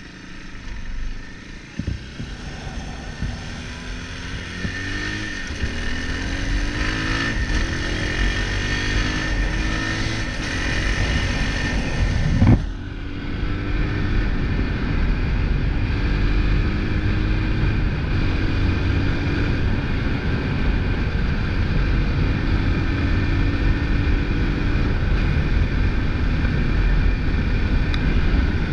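Motorcycle engine accelerating, its pitch climbing and dropping back several times as it shifts up through the gears, then running steadily at speed. There is a sharp knock about twelve and a half seconds in.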